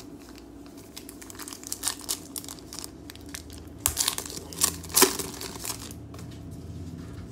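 Foil wrapper of a baseball-card pack crinkling and tearing as it is ripped open by hand, in crackly bursts that are loudest about four and five seconds in.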